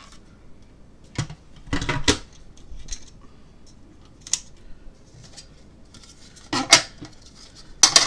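Hard plastic parts of a Babymoov humidifier clicking and knocking together as it is fitted together by hand: the water reservoir locked onto the base and the frosted cover set on top. Scattered separate clicks and knocks, a few louder ones in the last two seconds.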